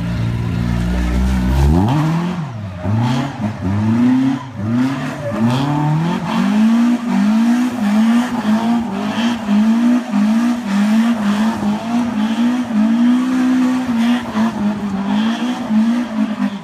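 Volvo S40 rally car doing donuts: about two seconds in the engine revs up sharply from a low steady note, then runs hard with its note rising and falling about three times every two seconds as the throttle is worked, over the squeal and hiss of the spinning rear tyres.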